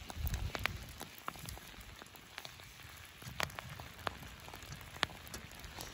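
Wood campfire crackling, with irregular sharp pops over a faint hiss. A low rumble comes now and then.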